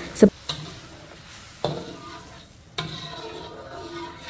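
Utensil stirring a pan of boiling spicy soy sauce gravy as sliced carrot is mixed in, with a sizzling bubbling underneath and two sharp knocks against the pan, about a second and a half and nearly three seconds in.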